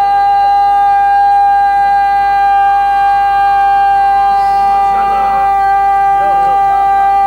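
Public-address microphone feedback: a loud, steady ringing tone held at one pitch, with faint voices underneath.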